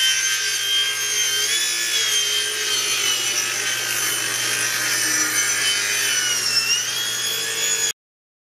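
Table saw ripping a long wooden board fed by hand along the fence: a steady blade whine over the noise of the cut. About seven seconds in, the whine dips in pitch and then recovers as the blade bogs briefly under load.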